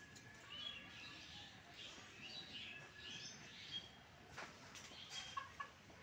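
Faint bird calls: a scatter of short chirping calls, with a few sharper calls a little before the end.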